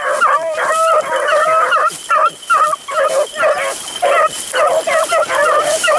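Pack of beagles baying together while running a rabbit's scent trail: many overlapping hound calls with no break.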